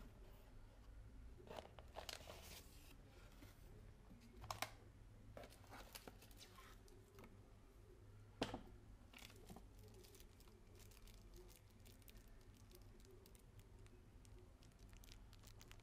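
Faint rustling and crinkling of packaging being handled: a cardboard box lid, plastic wrap and a paper leaflet, with a few sharp clicks and knocks, the loudest about eight and a half seconds in. After about ten seconds only light ticks and crinkles remain as a small plastic bag of screws is handled.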